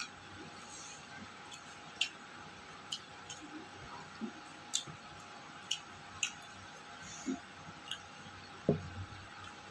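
A person eating a meal of rice and fish: short, irregular mouth clicks and chewing sounds about once or twice a second, with a louder knock near the end.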